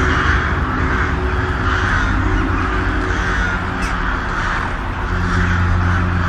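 Crows cawing over and over, about once a second, over a steady low droning hum that swells about five seconds in.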